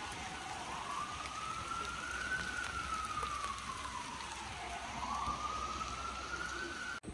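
An emergency-vehicle siren wailing slowly down and up twice, over a steady hiss of heavy rain falling on wet pavement. The sound cuts off abruptly near the end.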